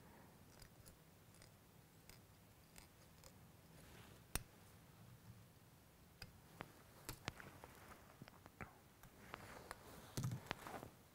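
Faint scattered clicks and ticks of fly-tying tools: a whip-finish tool tying off thread at the hook eye, then scissors snipping the thread, with the loudest cluster of snips near the end.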